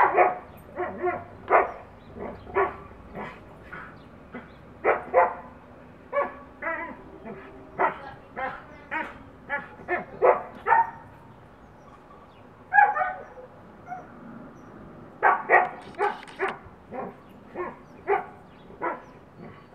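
Huskies playing through a gap under a fence, giving short barks and yips in quick runs broken by brief pauses.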